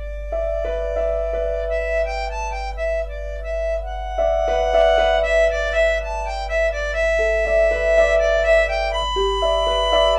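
Background music: held, overlapping notes moving in a slow melody, over a steady low hum.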